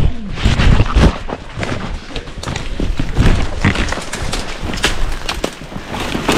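Running through dense brush: rapid thuds of footfalls and rustling, snapping vegetation, with knocks and rubbing from the jolting camera against clothing.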